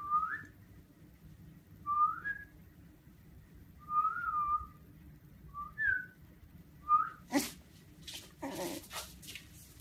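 A person whistling short rising notes, about six in all and one to two seconds apart, one of them a longer rise and fall. A single knock follows about seven seconds in.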